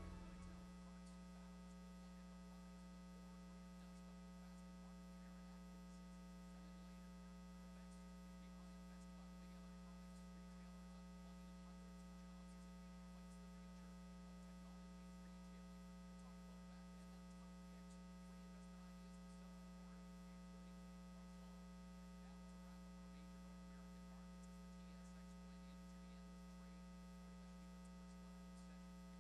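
Near silence with a faint, steady electrical hum, after the last of the music dies away in the first second.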